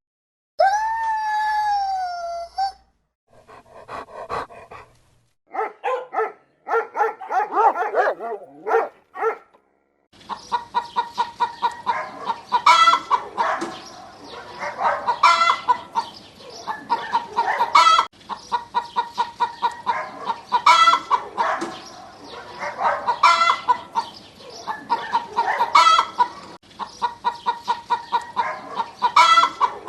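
Chickens: a single drawn-out call at the start that rises then falls slightly in pitch, like a rooster crowing, then clucking that after about ten seconds settles into repeated bouts, each rising to a louder squawk about every two and a half seconds.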